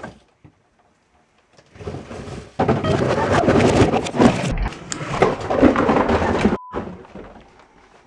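Cardboard shoe boxes and shoes tumbling off a high closet shelf in a long, dense clattering cascade that starts about two and a half seconds in and runs for about four seconds. A short beep follows right after it.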